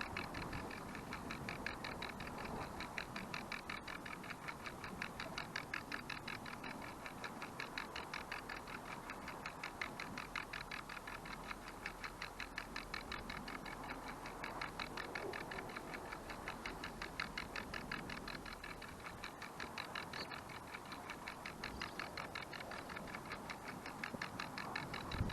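Clockwork of a wind-up IKEA kitchen timer ticking rapidly and evenly as it slowly turns a camera round on a panorama mount.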